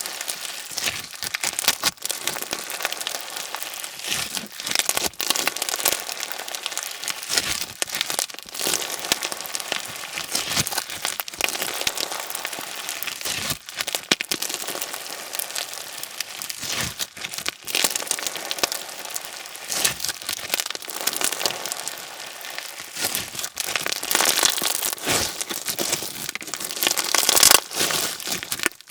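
Slime packed with slushie beads (small plastic pellets) being squeezed and worked by hand, giving a dense run of crunchy crackles and pops. It grows louder near the end.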